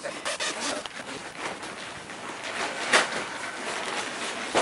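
A padded fabric bike travel bag being opened and its contents handled: a run of rustling and crinkling of fabric and plastic, with a sharper louder scrape about three seconds in and another near the end.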